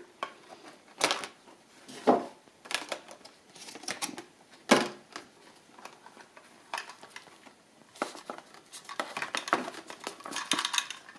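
Clear plastic blister packaging crackling and clicking as it is prised open and a model railway wagon is pulled out of its tray, with a few sharper snaps, the loudest a little before halfway.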